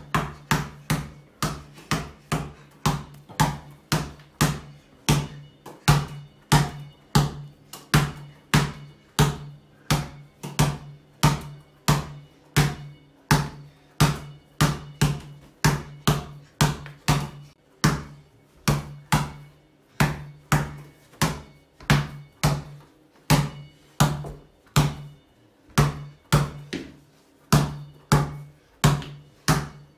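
Basketball dribbled on a tiled floor at a steady pace of about two bounces a second, each bounce a sharp slap followed by a short low ring from the ball. The rhythm breaks briefly a couple of times.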